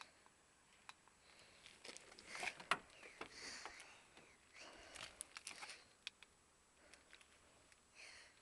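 Faint scattered clicks and short rustling sounds, loudest a little before three seconds in and again around five seconds in.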